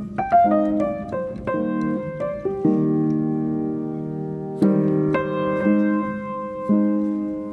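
Background piano music: single notes and chords, with a long held chord in the middle and a new chord struck about four and a half seconds in.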